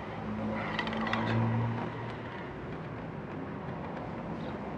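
A few light clicks of hands handling a plastic blower motor and fan cage about a second in, over a low steady hum that fades after about two seconds.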